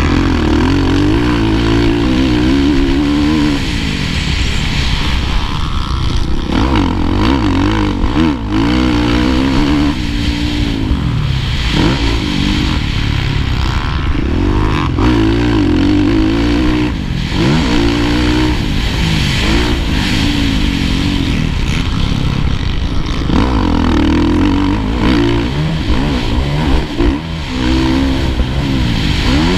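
Kawasaki KX450F motocross bike's 450 cc single-cylinder four-stroke engine at race pace, heard close up from on the bike, revving up hard and dropping off again and again through corners and down straights.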